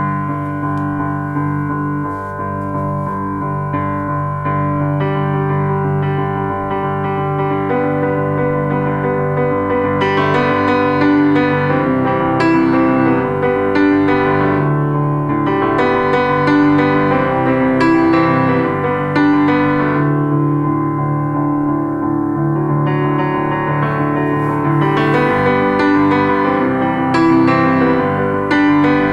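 Piano music played back through a homemade Bluetooth speaker with two 4-inch woofers and a tweeter, recorded with the microphone close to the speaker.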